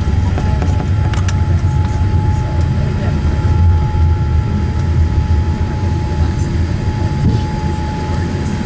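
Cabin noise of a Boeing 787-8 rolling on the runway after landing: a steady low rumble with a steady whine and a few small rattles and clicks.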